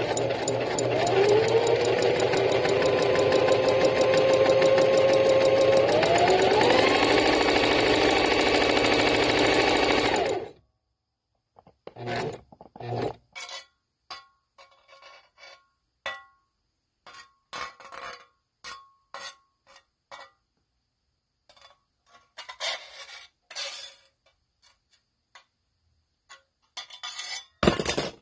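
A steady, rapid machine whir for about ten seconds, with a tone that rises in pitch about six seconds in, then stops abruptly. After it come scattered light clicks and clinks with quiet between them.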